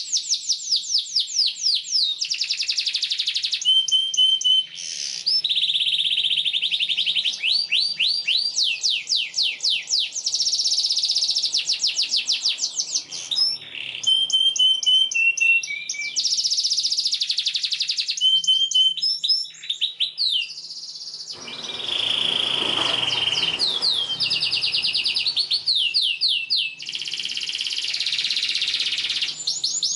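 Domestic canary singing: fast, high trills of quickly repeated rising notes, switching to a new trill every few seconds with brief pauses between phrases. About two-thirds of the way through, a low rushing noise lasting a couple of seconds sounds under the song.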